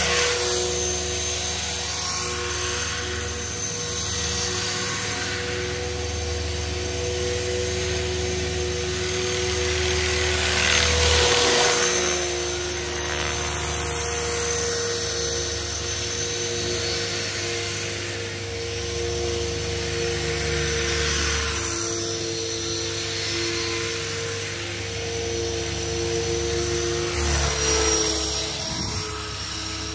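Align T-Rex 500 electric RC helicopter flying, its motor and rotors giving a steady whine with a low rotor hum. The sound swells as it passes close, loudest about eleven seconds in and again near the end.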